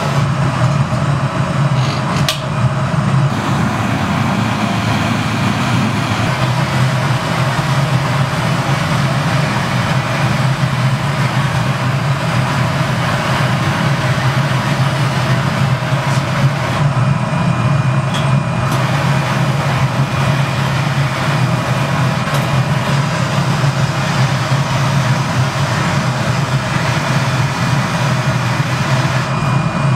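Steady roar of the gas burners in a glassblowing studio, with a small hand torch running against the hot glass; a low hum sits under an even rushing noise that never lets up.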